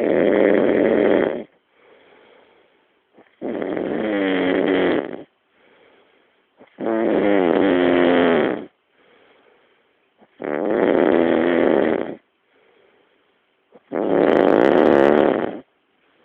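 A man snoring heavily in his sleep: five loud snores about every three and a half seconds, each lasting a second and a half to two seconds, with softer breaths between them.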